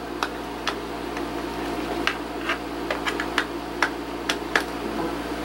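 A dozen or so light, sharp clicks and taps at irregular intervals as a USB cable's plug is handled and fitted into a USB hub's port, over a steady low hum.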